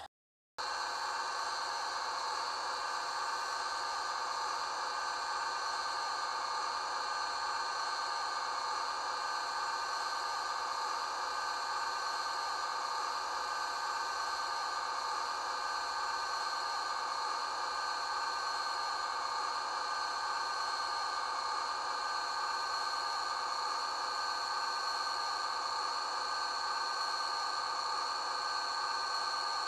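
Rapido HO-scale Amtrak F40PH model locomotive's onboard sound system playing a steady, hissy diesel engine drone with a few held tones while the locomotive stands still. It starts right after a brief dropout at the very beginning.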